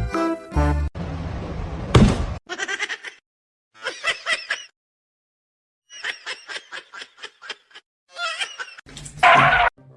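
An animal calling in short bouts of fast, pulsing cries, with pauses between the bouts and a louder cry near the end.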